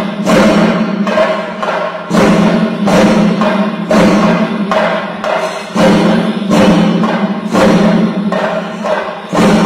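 Loud drum-led percussion music accompanying a Puli kali tiger dance, with hard strokes landing about once a second over a dense, steady beat.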